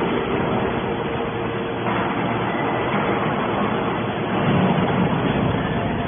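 Hydraulic scrap metal baler running, its motor and pump making a steady mechanical hum with a constant tone. It grows a little louder and deeper about four and a half seconds in.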